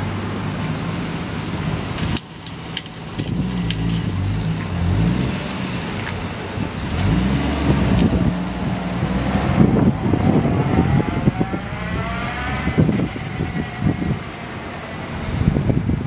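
Toyota JZX100 straight-six engine running and being blipped, its pitch stepping up and down. A few sharp clicks come about two to four seconds in, and a rising whine from about ten seconds in.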